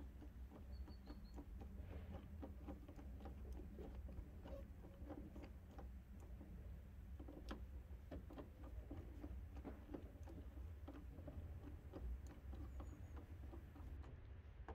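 Faint small clicks and scrapes of a hand screwdriver turning the screws that fasten a rear door lock into a car door's metal frame, irregular throughout, over a steady low rumble.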